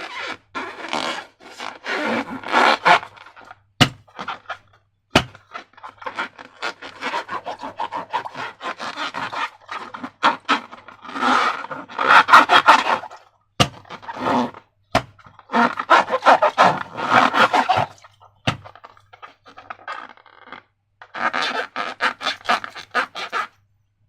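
Slime being worked by hand, squelching and crackling in bursts of a second or more with short pauses between them, and a few sharp clicks.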